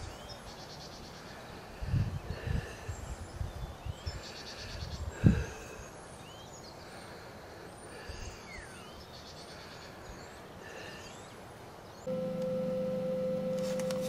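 Wind gusting on the microphone, with a sharp gust about five seconds in, over small birds chirping and trilling. About twelve seconds in, a steady held note of background music comes in.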